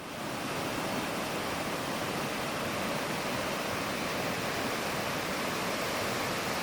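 Steady rushing hiss with no distinct events, fading in over about the first second.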